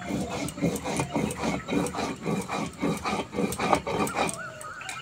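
Mustard and fennel seeds being ground by hand on a stone grinding slab (shil-nora), a steady rhythm of rubbing strokes about three a second that stops about four seconds in.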